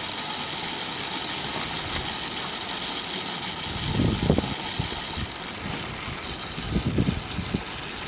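Electric motors of a pair of Tri-ang R751 OO-gauge model locomotives running steadily with a high whine, pushing a snowplough wagon. Low rumbling buffets come about four and seven seconds in.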